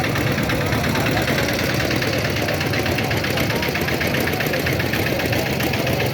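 An engine running steadily at idle, with a fast, even ticking.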